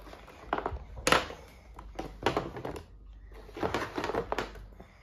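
A cardboard toy box being rummaged through by hand: irregular rustles and knocks of the cardboard packaging, the loudest about a second in and a busy patch near the end.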